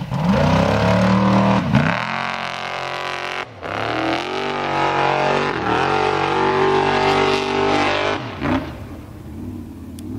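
Formula offroad buggy's engine revving hard under load as it climbs a steep gravel slope. The revs drop and surge again about four times as the throttle is lifted and reapplied, with a brief cut-out about three and a half seconds in, and the engine falls away near the end.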